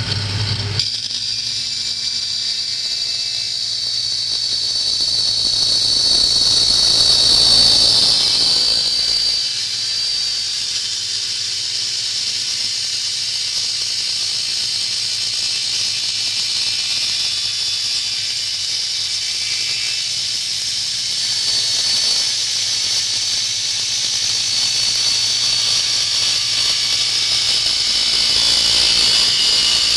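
Circular saw cutting through aluminium profile: a steady, high-pitched screech with a hissing edge, swelling louder a few seconds in and again near the end.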